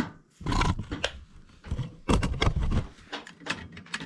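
A wrench working on a gas boiler's pilot fitting: irregular metal clicks and scrapes, with short bursts of rough noise.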